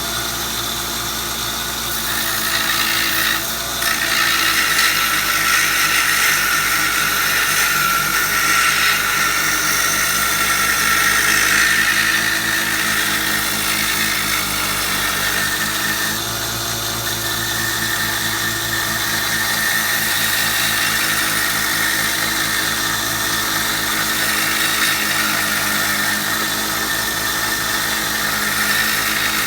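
Belt sander running with a steel draw knife blade held against the belt, grinding the blade. A steady motor hum underneath a high whine that wavers as the pressure changes; louder from about two seconds in, easing slightly about halfway through.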